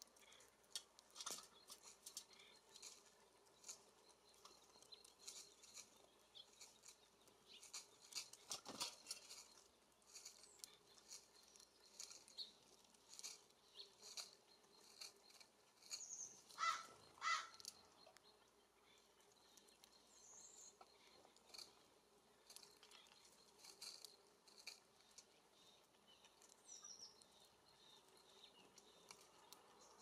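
Faint, scattered taps and clicks of small songbirds pecking seed and shifting on the metal feeders, with a few short, high chirps, the loudest a couple just past the middle.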